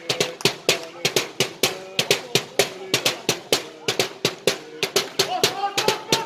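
A supporters' drum beaten in a steady, fast rhythm of about four to five strokes a second.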